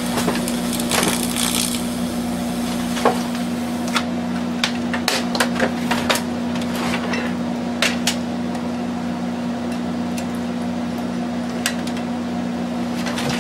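Dell Optiplex 780 power supply crackling and popping irregularly over a steady electrical hum, the sound of the supply failing after being abused with liquid.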